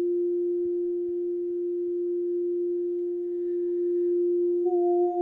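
Singing bowl sustained by rimming: one steady ringing tone with a faint higher overtone, which grows louder and begins to waver near the end.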